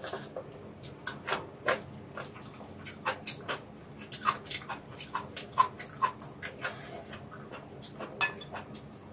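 Close-up sounds of someone eating hot vegetable noodle soup: an irregular string of short wet slurps and mouth smacks while chewing the noodles.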